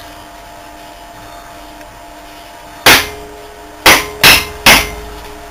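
A Ford vane-type power steering pump housing is knocked against a steel bench vise to free its internal parts, giving four sharp metal knocks. The first comes about three seconds in and the other three follow in quick succession near the end, with a brief metallic ring after them.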